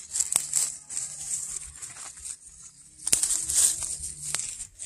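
Longan tree leaves and branches rustling and crackling as a hand works through them, with three sharp snaps or clicks spread through.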